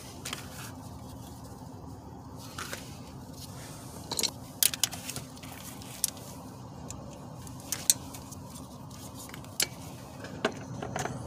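Scattered sharp clicks and clinks of hand work in a car's engine bay: plastic wiring connectors being unplugged beside the starter and a metal wrench being handled. A cluster of clicks comes about four seconds in, the loudest near eight seconds, all over a steady low hum.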